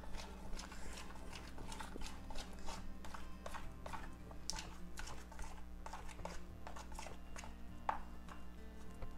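A spoon stirring thick cake batter in a plastic mixing bowl: irregular clicks and scrapes of the spoon against the bowl's sides, several a second.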